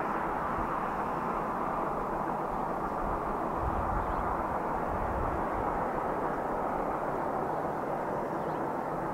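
A vehicle running steadily: a continuous rushing noise with a faint steady hum and a low rumble swelling briefly about four seconds in.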